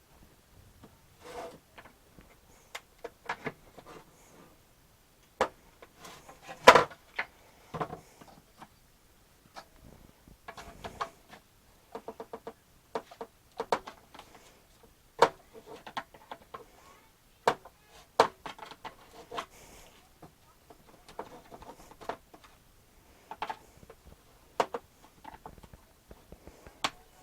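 Irregular plastic clicks, knocks and rattles as a windscreen washer bottle and its pump unit are handled, the pump being worked loose to slide it out of the bottle. One sharper knock about seven seconds in.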